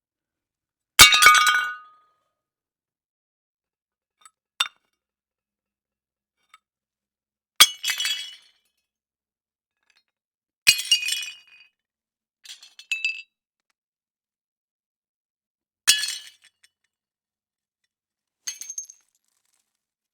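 Plates smashing one after another. Each break is a sharp crash followed by about a second of shards clinking and scattering. There are four loud breaks and three smaller ones a few seconds apart, with silence between them.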